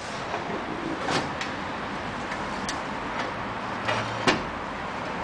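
A few light clicks and clinks of small metal hardware being handled during motorbike assembly, scattered over a steady background hiss; the sharpest comes a little after four seconds.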